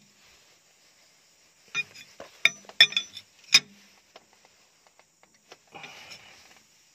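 Sharp metal clinks of a spanner working the 30 mm locknut on a Komatsu PC200-8 excavator's main relief valve as the nut is tightened after the pressure adjustment. A quick cluster of clicks comes in the first half, and a faint scuffing follows near the end.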